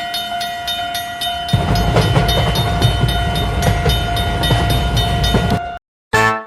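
Cartoon train sound effect: a steady horn tone over fast, regular clicking, joined about a second and a half in by the heavy rumble of a passing train. It cuts off suddenly near the end, and a short honk follows.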